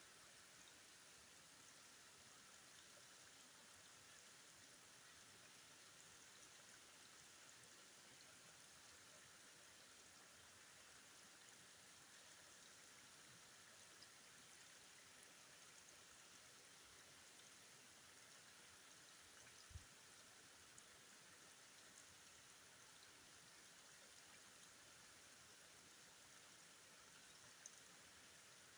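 Faint steady rush of flowing river water, with one soft low knock about two-thirds of the way through.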